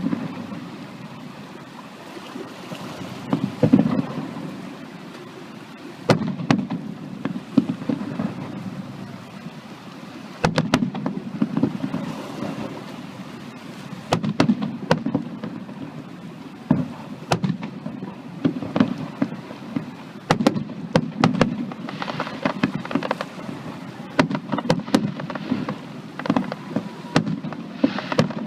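Fireworks display: aerial shells going off in sharp bangs every few seconds, with quick runs of cracks and a low rumbling echo after each, getting denser and busier near the end.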